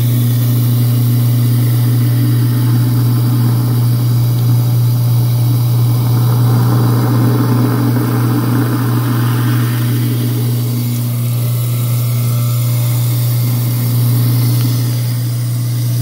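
Kitchen garbage disposal motor running with a steady low hum while hot tap water pours into it. About six seconds in, a rushing, churning sound swells up as dish soap is whipped into froth in the spinning chamber, scrubbing out the odour. It settles back after about four seconds.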